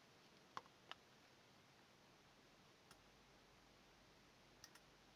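Near silence: quiet room tone with a few faint, light clicks, two of them close together in the first second.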